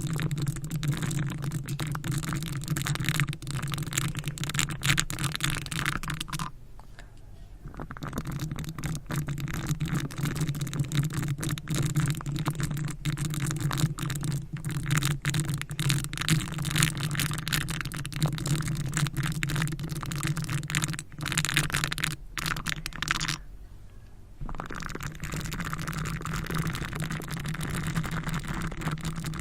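Close-miked ASMR trigger sounds: a dense run of crackly scratching and light tapping over a steady low hum, pausing briefly twice.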